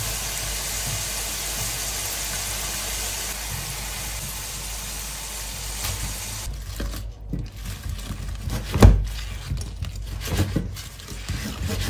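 Oil sizzling steadily as potato cubes fry in a pan. More than halfway through, the sizzle gives way to a slotted spoon and spatula knocking and scraping in a nonstick frying pan as the fried potatoes are tipped in and stirred through the chicken, with one louder knock a little after that.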